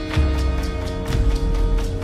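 Film soundtrack music: sustained held tones over deep bass notes, with a steady beat of short percussive strikes.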